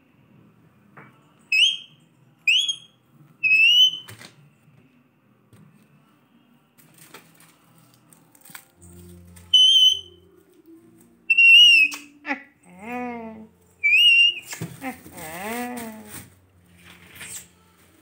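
Rose-ringed parakeet giving short, rising whistles, about six of them, spaced irregularly. Some lower, wavering chatter and a longer harsh call come about three quarters of the way through.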